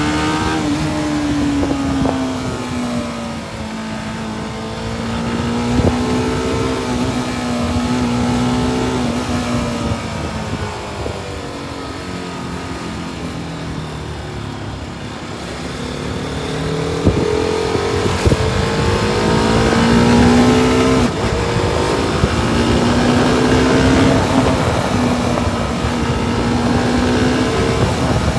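TVS Apache RR 310's single-cylinder engine running on the road, its pitch easing down early on, holding steady, then climbing again about two-thirds of the way through with several quick steps in pitch.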